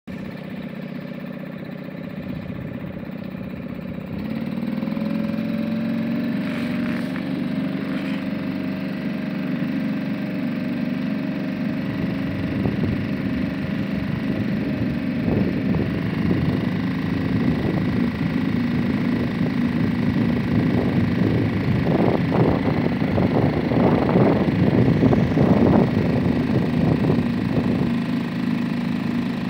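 Suzuki DF2.5 single-cylinder four-stroke outboard motor running on an inflatable canoe under way. About four seconds in it speeds up and gets louder, then holds a steady pitch, with an uneven rushing noise rising over it in the second half.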